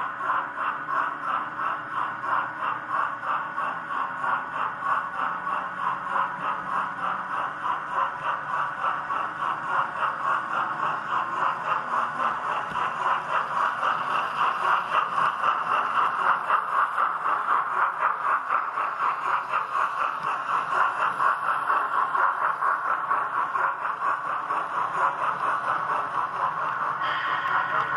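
Model train of a Trix BR 44 steam locomotive and ore hopper wagons rolling along the track, its wheels clattering rhythmically over the rails and points, louder as it passes close by.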